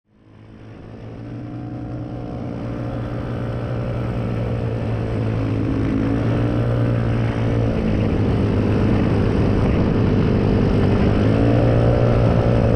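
Mini bike and scooter engines running together, revs swelling and easing a little. The sound fades in over the first couple of seconds, then holds steady.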